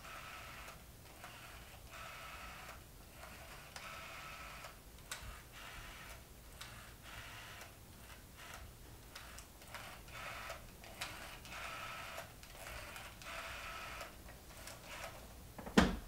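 Faint, even ticking, about once a second, with a single sharp knock near the end.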